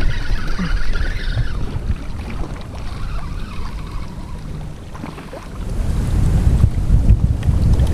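Wind buffeting the microphone over open ocean, with the sea washing around a kayak. The wind eases about five seconds in, then gusts up again.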